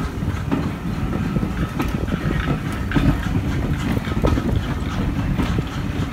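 Vintage steam-hauled passenger carriages rolling past close by, their wheels giving a low rumble and irregular clicks over the rail joints.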